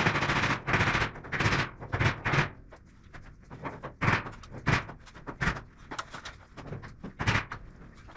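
Metal ceiling panel struck again and again by a gloved hand: irregular bangs and rattles of thin sheet steel, a quick cluster in the first couple of seconds and then scattered knocks, as the panel is tapped into line until it sits flush with the next one.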